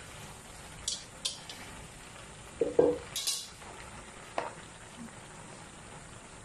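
Metal ladle stirring chopped jackfruit in a metal wok: a few clinks and scrapes against the pan, loudest about three seconds in, over a faint steady sizzle of the frying.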